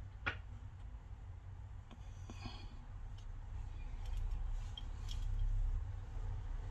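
Faint clicks and a short scrape of a small hand tool working around the camera opening on the back of a phone while cleaning, over a steady low hum. One sharp click comes right at the start.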